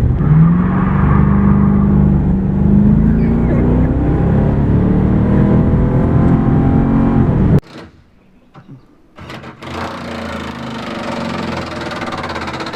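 An engine running loudly, its pitch rising slowly as it revs up, then cut off abruptly about halfway through. After a short gap, an engine runs again more quietly.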